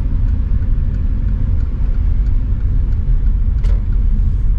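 Steady low rumble of a car being driven, engine and road noise heard from inside the cabin, with one brief click near the end.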